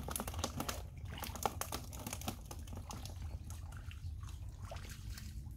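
Quick, irregular splashes and slaps in shallow muddy water, many close together in the first two seconds and then fewer, over a steady low rumble.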